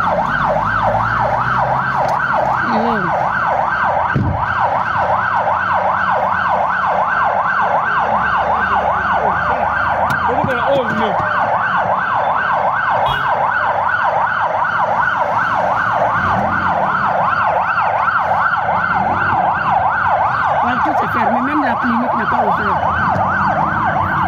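A siren warbling fast and steadily, its pitch sweeping up and down several times a second, with faint voices underneath.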